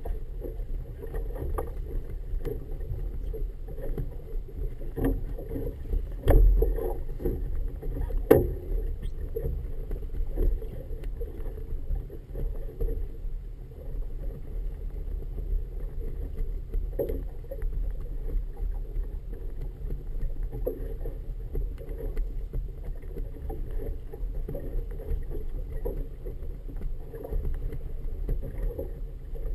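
Wind rumbling on the microphone and water slapping against the hull of a small boat on choppy water. Two sharp knocks stand out, about six and eight seconds in.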